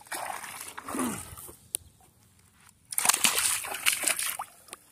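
Freshly landed fish flapping and splashing on the wet, muddy bank while it is handled off the hook, in two bouts of wet slapping and sloshing, the second about three seconds in.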